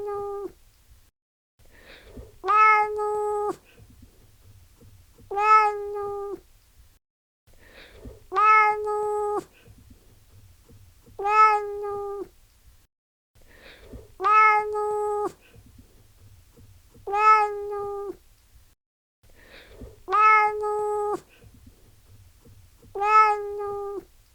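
Domestic cat meowing: one steady-pitched meow about a second long, repeated about every three seconds, with each call the same.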